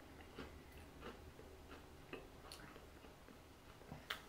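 Faint, irregular crunches of a boiled and dehydrated tarantula being chewed.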